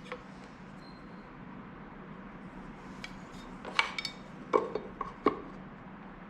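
Bolts and hand tools being handled: a handful of light metallic clinks and knocks in the second half, over a faint steady hum.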